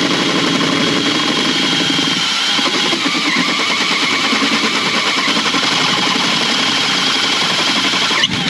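Electric drill running under load, drilling out the centre hole of a steel washer to enlarge it, with a steady motor whine and a high metal-cutting squeal; it stops just before the end.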